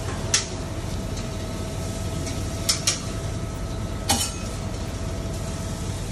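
A large knife slicing through a charred grilled steak on a cutting board, with about four short sharp clicks as the blade meets the board and the cut pieces are handled, over a steady kitchen hum with a faint steady tone.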